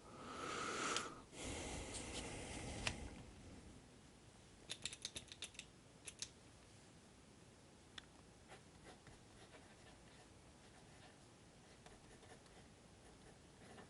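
Mechanical pencil with 0.7 mm HB lead scratching across paper for about three seconds, followed by a quick run of sharp clicks about five seconds in and a few faint ticks after.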